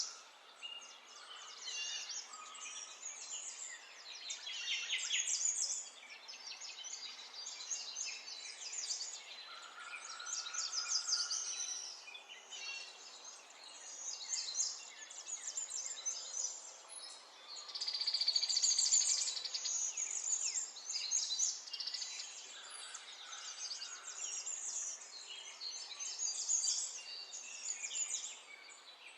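Many birds chirping and singing at once, a dense unbroken chorus of quick high chirps and trills.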